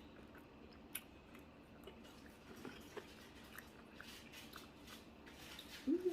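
Close-miked chewing and biting of a crispy fried egg roll, with faint scattered crunches and mouth clicks, and a short voiced hum near the end.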